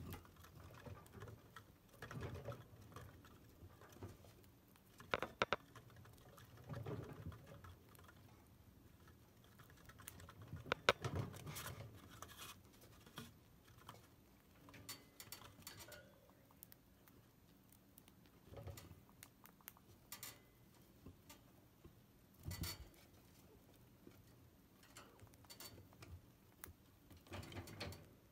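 Chinchillas gnawing and handling apple wood sticks on a wooden cage ledge: faint, irregular small clicks, crunches and scrapes, with a few louder knocks.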